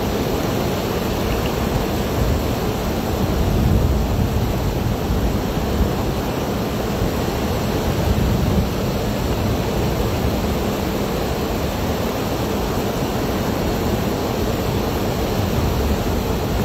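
Steady rushing noise of a shallow river flowing over stones, with a low rumble underneath.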